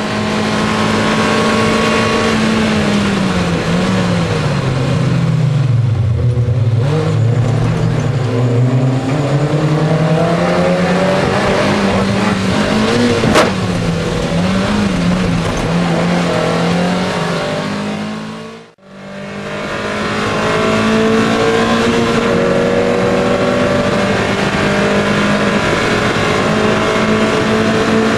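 MGF race car's four-cylinder engine heard from inside the cockpit, running hard. Partway through the revs fall, waver up and down for several seconds and climb again as the car slows, with one sharp click; the sound cuts out briefly near two-thirds through and comes back with the engine holding steady high revs.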